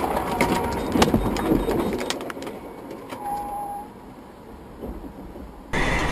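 Vehicle collision heard from a dashcam: a rapid series of crashing impacts and debris clatter for about two and a half seconds, loudest about a second in, then dying away to quieter road noise. Near the end a loud steady rush of engine and road noise starts abruptly.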